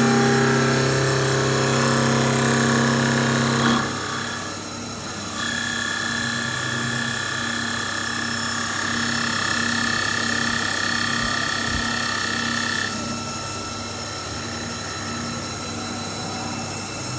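CNC wood lathe running with its spindle turning a wooden blank: a steady motor whine under the louder noise of cutting, which drops off about four seconds in. A higher steady whine joins from about five to thirteen seconds in.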